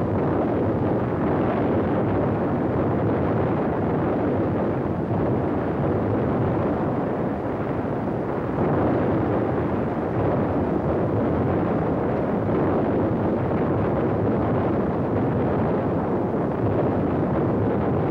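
Battle sound of an artillery barrage: explosions and gunfire running together into one dense, unbroken din at an even level.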